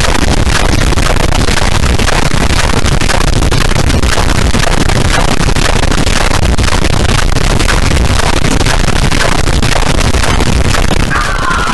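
Loud, harsh, heavily distorted static-like noise with constant crackling, with no clear voice or tune in it. Near the end a higher hissing band joins in.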